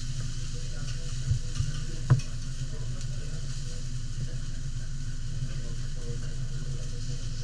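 Food sizzling on a teppanyaki steel griddle over a steady low hum, with three short metal knocks about a second to two seconds in, the last the loudest, as a spatula strikes the griddle.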